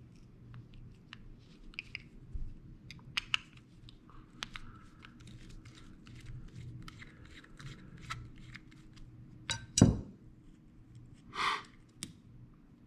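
Small metal clicks and scrapes of a screwdriver and reel parts as the bail is unscrewed and taken off a Penn 430SS spinning reel. A louder single knock comes about ten seconds in, then a short rasping hiss a second and a half later.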